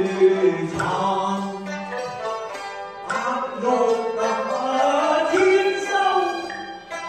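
Cantonese opera singing: a man's voice holding long notes that slide from pitch to pitch, over instrumental accompaniment, with a short break about three seconds in.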